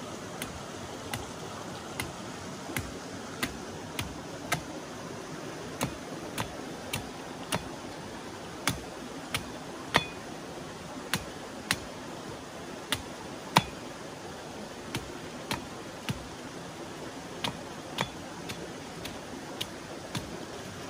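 Machete chopping the husk of a green jelly coconut on a wooden block: a string of sharp knocks at a little over one a second, uneven in spacing and force, with the hardest strikes near the middle.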